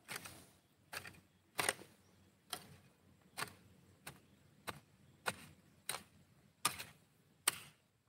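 Short, crisp crackles of dry cut grass and straw being worked with a long bamboo pole, repeating steadily about every three-quarters of a second.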